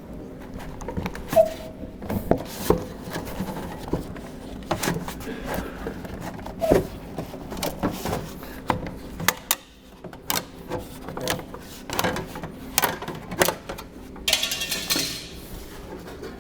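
Sheet-metal roofing panel being worked by hand, sounding as irregular metallic clicks and clanks, with a short scraping rasp near the end.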